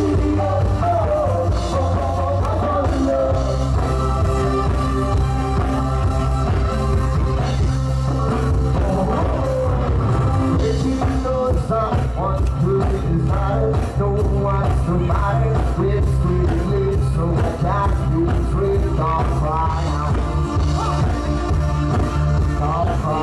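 Loud dance music with a singing voice over a steady, heavy bass, playing without a break.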